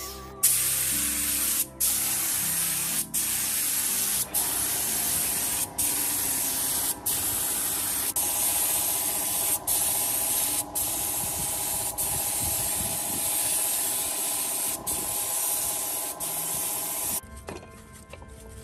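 Compressed-air spray gun with a suction-feed glass cup spraying paint: a steady loud hiss broken by brief gaps every second or so as the trigger is released and pulled again. The spraying stops about a second before the end.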